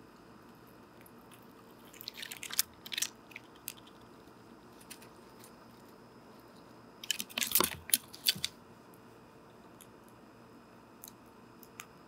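Squirrel chewing and crunching seeds right at a microphone on a bird feeder: two bouts of sharp crunches, about two seconds in and again about seven seconds in, with a few faint clicks between.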